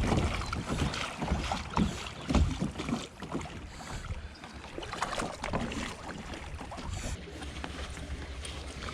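Kayak running through small river rapids: rushing, splashing water around the hull with irregular knocks and thumps, loudest in the first few seconds and easing off toward the end.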